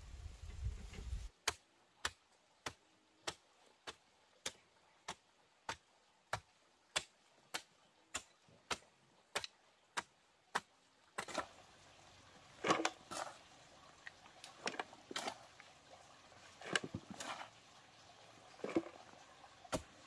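A tool striking bamboo in a steady rhythm, about sixteen sharp knocks a little over half a second apart. Then, about eleven seconds in, irregular clattering and scraping of bamboo being handled.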